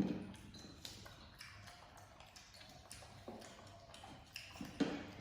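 Light taps and clicks of small hard objects being handled, with a louder knock at the start and another near the end.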